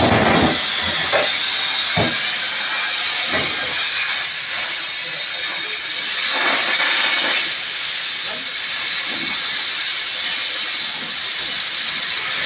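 Oxy-fuel cutting torch hissing steadily as its flame cuts through thick truck spring steel, throwing sparks. A few short knocks sound in the first few seconds, one about two seconds in.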